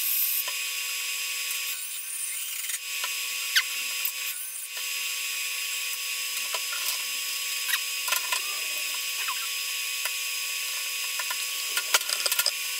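Steady high hiss with a constant tone under it, and scattered sharp clicks and taps of tools and metal being handled on a steel welding table, quickening near the end.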